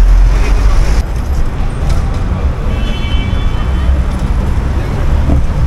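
Road traffic at a city intersection: a steady, loud low rumble of passing cars. A short high tone sounds about three seconds in.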